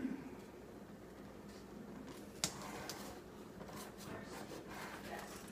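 Quiet hand-handling noises as a small metal Z-clip held with painter's tape is repositioned on a microwave trim frame, with one sharp click about two and a half seconds in, over a faint steady hum.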